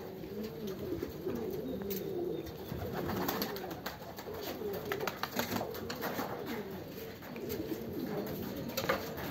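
A loft full of domestic pigeons cooing, many low, wavering coos overlapping without pause, with a few short sharp taps among them.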